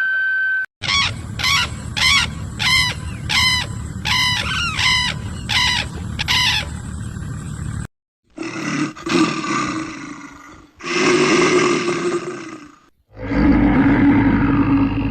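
Animal calls: a quick run of about a dozen short, high calls, each falling in pitch. After a brief gap come three long, rough, lower calls.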